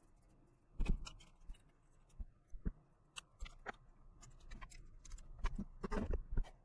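Irregular small clicks and scrapes of a small hand tool working on electronic connector contacts, straightening and cleaning the pins so they make good contact. The clicks come thicker and louder in the second half.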